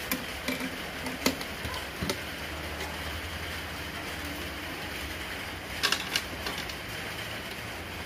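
Small metal barrel-bolt latch clicking and sliding as the hinged door of a bird carrying box is unbolted, opened and shut again. There are sharp clicks about a second in, and a cluster of louder clacks near six seconds in as the door closes against the box, over a steady low hum.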